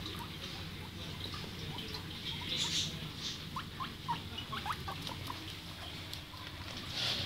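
Guinea pig giving a quick run of short, rising squeaks around the middle, with a couple of soft rustles as it is stroked.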